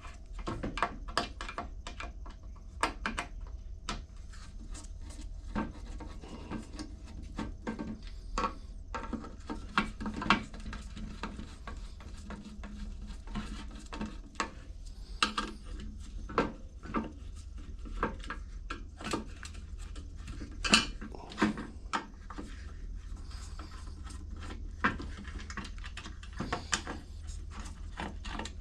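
Irregular light clicks, taps and clinks of a screwdriver and small metal carburetor parts being handled while the screws are worked out of a small lawn mower carburetor; one sharper clink about 21 seconds in.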